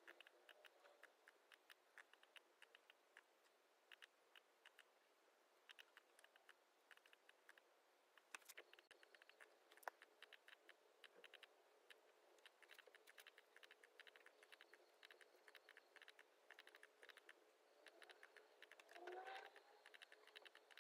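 Faint typing on a laptop keyboard: quick clicks in scattered bursts. A brief rising squeak comes near the end.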